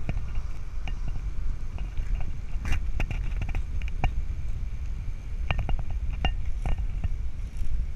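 Low rumble of wind on the microphone of a camera moving along a paved path, mixed with the roll of wheels on the pavement, and a dozen or so sharp clicks and rattles at irregular moments.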